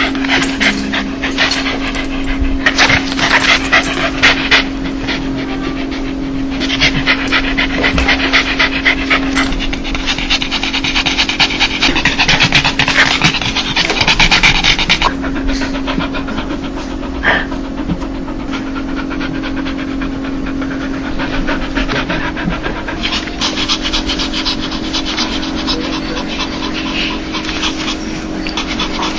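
Dog panting fast and hard in spells of quick huffing breaths with short lulls between them: the happy, excited 'dog laugh'.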